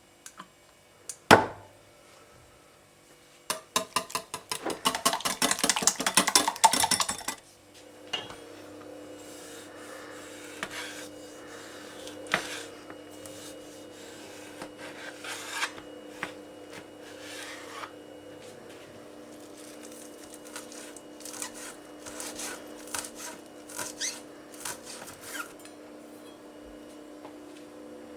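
Kitchen food-preparation sounds: a sharp knock about a second in, then a few seconds of fast, rapid scraping strokes of a utensil, followed by scattered light scrapes and clicks over a faint steady hum.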